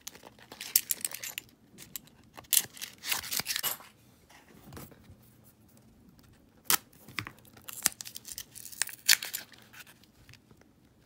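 Paper coin-roll wrapper of half dollars being torn open and crumpled in several bursts, with a few sharp clicks in between.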